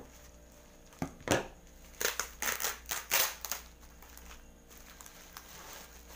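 Plastic parcel packaging being torn open and crinkled by hand: a short rustle about a second in, then a run of irregular crinkling and crackling bursts for about a second and a half.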